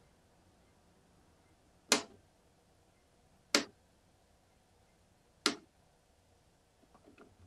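Three sharp taps on an old radio set as it is handled, about a second and a half to two seconds apart, with a few faint small knocks near the end.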